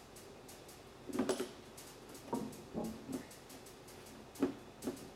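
A snorkel body being handled and pressed against a truck's front fender during a test fit: a handful of short, scattered knocks and rubs, the loudest about a second in.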